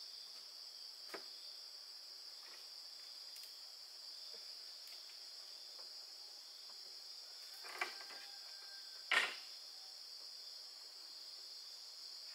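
Steady high-pitched chorus of insects, with a few light knocks: one about a second in and two more about two-thirds of the way through, the second the loudest.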